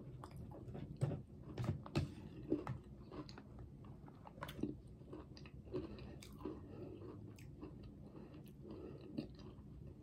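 Quiet mouth sounds of eating: chewing and smacking on spoonfuls of creamy vanilla pudding with cookie crumbles, with scattered soft clicks.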